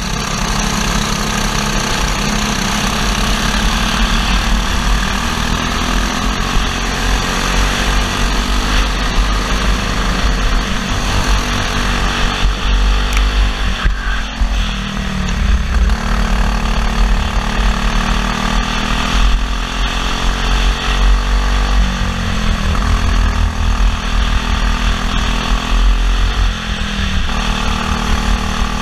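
Briggs & Stratton LO206 single-cylinder four-stroke kart engine running at race pace, heard from onboard. Its pitch falls and climbs again a few times as the kart slows and accelerates.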